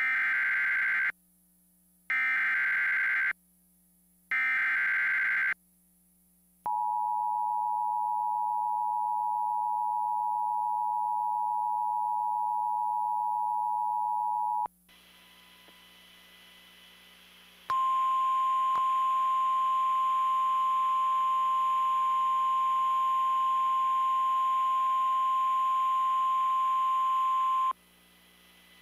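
Emergency Alert System tones: three bursts of SAME header data tones about a second each, then the two-tone EAS attention signal held for about eight seconds. After a short pause with faint hiss, a single steady NOAA Weather Radio 1050 Hz alert tone sounds for about ten seconds and cuts off suddenly, announcing a severe thunderstorm warning.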